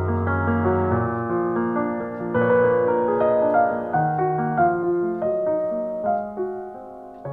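Solo piano playing a slow, gentle piece: a melody of single notes over held bass notes, each note struck and then fading.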